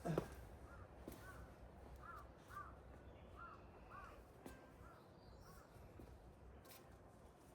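A bird calling faintly: a run of short rising-and-falling notes, about two a second, for the first five seconds or so. A knock right at the start is the loudest sound, and there are a few fainter taps later.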